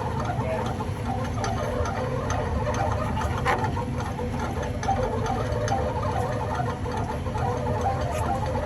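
Boat's crab-pot hauler and engine running steadily with light ticking, winching the pot line up from the bottom.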